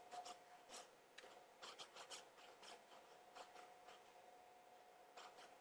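Near silence: room tone with faint scattered clicks and small rustles, mostly in the first two seconds, over a faint steady tone.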